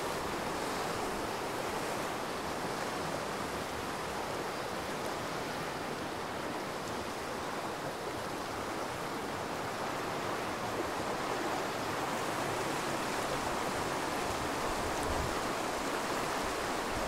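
A shallow river running over a rocky bed: a steady rush of water.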